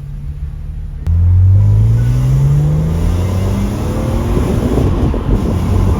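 BMW Z4 M's S54 straight-six, decatted with an X-pipe, pulling hard from about a second in, its revs climbing steadily under full throttle. The exhaust note turns rougher as the revs rise.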